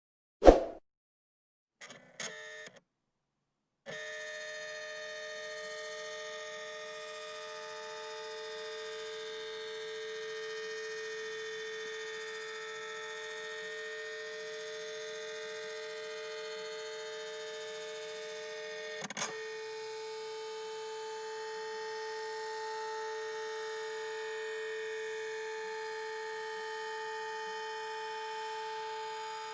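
Computer starting up: a sharp click, two brief stutters, then from about four seconds a steady electric hum with a whine. A faint click comes about two-thirds of the way through, and a further tone joins the hum after it.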